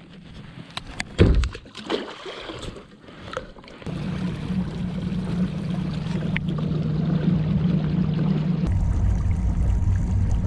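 A few clicks and knocks, then about four seconds in a kayak's Haswing Protruar electric motor starts and runs with a steady hum over water noise; near the end its tone drops lower and grows louder.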